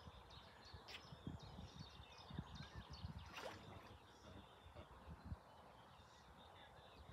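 Faint lakeside ambience: small birds chirping and twittering in the distance over a low, irregular rumble.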